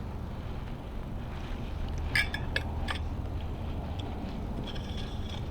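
A few light metallic clinks of small metal parts being handled, clustered about two seconds in, over a steady low hum.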